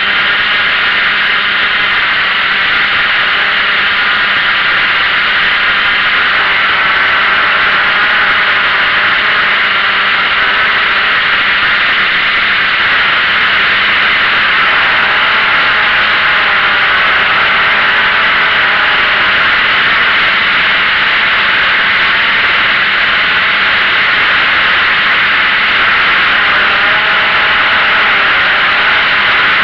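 Small drone's electric motors and propellers heard from the camera on board: a loud, steady whir with faint pitches that waver slightly as the craft holds and turns.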